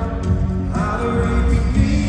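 Live band music with a sung vocal, played loud through an arena sound system and heard from within the crowd.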